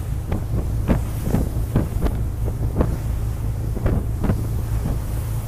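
Wind buffeting the microphone on a moving boat at sea, over the steady low rumble of the boat's engine, with short thuds about every half second.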